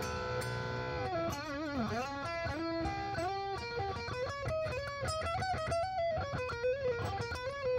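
Squier Jaguar electric guitar with Seymour Duncan pickups being played. A held chord rings for about a second, then the pitch dips and wavers, and then a quick single-note line follows.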